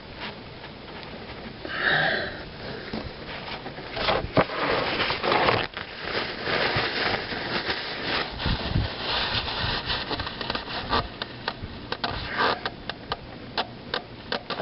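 Handling noise from working under a car by hand: irregular rubbing, rustling and scraping broken by many small clicks and knocks, with a short breathy sound about two seconds in.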